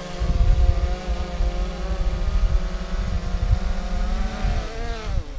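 Quadcopter propellers humming at close range, with a steady whine and buffeting from the rotor downwash on the microphone. Near the end the motors spin down, the pitch falling, and stop.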